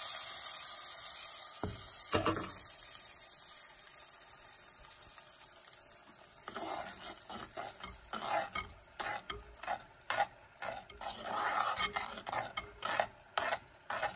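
Hot tempering of oil, mustard seeds and curry leaves sizzling as it hits the dal in a clay pot, the hiss fading away over the first few seconds, with a couple of knocks about two seconds in. Then a metal spoon stirring and scraping the dal against the clay pot in uneven strokes.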